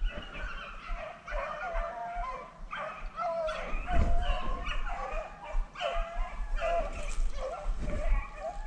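A pack of hunting dogs baying and yipping together, several voices overlapping in a continuous chorus, as hounds do when running a rabbit.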